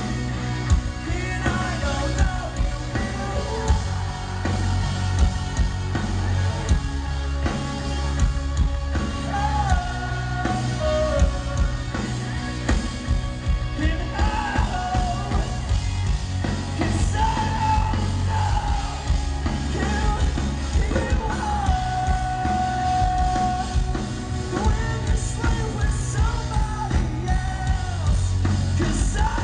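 Rock band playing live, with drums, bass and guitars under sung and yelled vocals.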